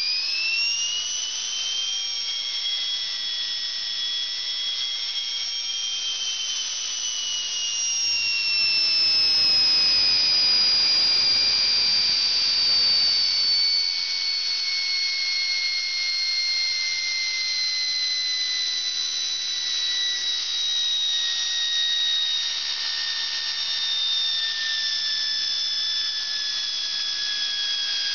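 Small open steam turbine spinning at high speed, directly driving two server cooling fans used as generators: a high-pitched whine of two tones that slowly sinks in pitch as the boiler pressure falls off.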